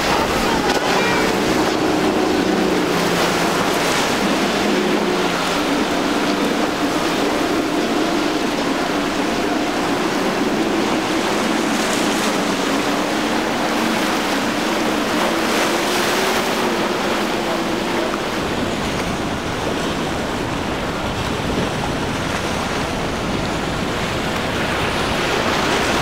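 Outboard-powered centre-console boat running at speed through the inlet: a steady rush of water and wind, with the outboard's drone wavering in pitch through most of it and fading out about two-thirds of the way through.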